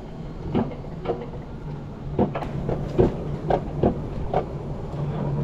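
Alpine coaster cart being hauled up the uphill tow section of its metal rail track: irregular clicks and clacks a few times a second over a steady low hum.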